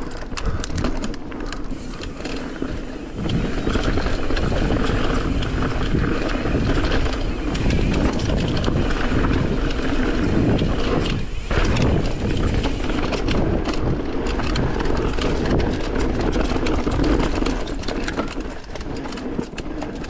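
Mountain bike riding fast down a dirt singletrack: a steady rumble of tyres on the trail with constant quick rattles and knocks from the bike over bumps, getting louder about three seconds in.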